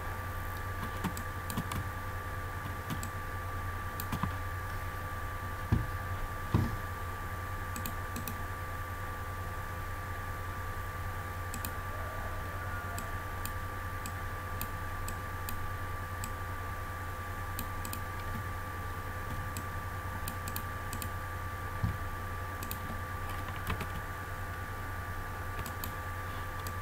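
Scattered clicks of a computer keyboard and mouse, with a few louder knocks around six seconds in and again near the end, over a steady low electrical hum.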